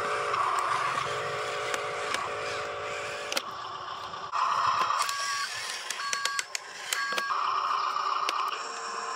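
Electric RC dump truck driving, its motors and gears giving a steady whine. About halfway through come three short electronic beeps, each on two pitches.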